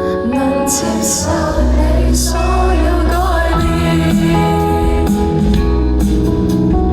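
Indie pop band playing live, with sustained chords and steady bass and a singing voice wavering over them in the middle.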